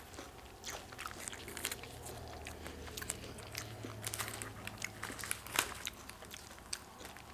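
A person chewing close to the microphone, with many small, irregular crunchy clicks and mouth sounds.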